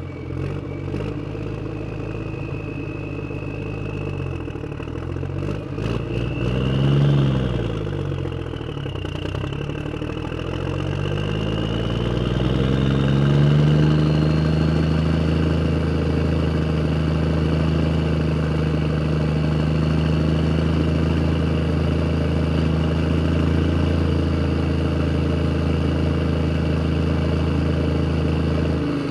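A motor vehicle's engine running: a short rev that rises and falls about seven seconds in, then the engine speed climbs and holds steady at a higher pitch for the rest of the time, with a thin high whine above it.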